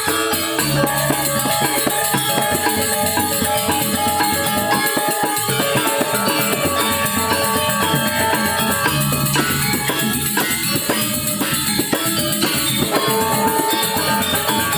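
A Balinese gamelan ensemble playing an instrumental piece without a break: bronze metallophones and gongs ring many pitched notes over fast drumming and a constant bright clash of small cymbals.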